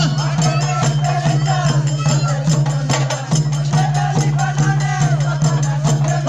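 Folk music: a two-headed barrel drum beating a steady rhythm, with a wavering melody over it.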